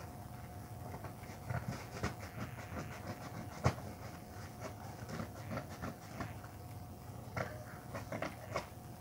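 Scattered small clicks and taps of hands handling and snipping small plastic craft pieces, the sharpest about three and a half seconds in, over the steady hum of a ceiling fan.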